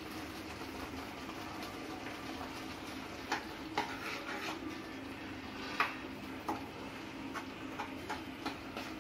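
Steel ladle stirring a thick tomato masala in a non-stick kadai, with scattered clicks and taps of the ladle against the pan from about three seconds in, over a low steady hiss.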